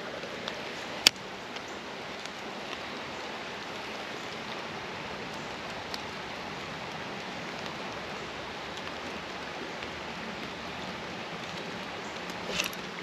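Creek water running with a steady hiss, and one sharp click about a second in.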